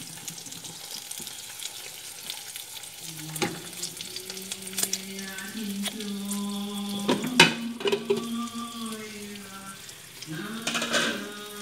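Eggs sizzling in hot oil in a nonstick frying pan, with a wooden spatula scraping and knocking against the pan now and then. A low, steady humming tone joins about three seconds in, breaking off briefly near the end before starting again.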